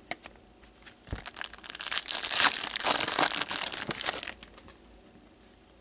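Foil wrapper of a hockey card pack crinkling as it is torn open and handled: a few light clicks, then about three seconds of dense crackling that stops suddenly.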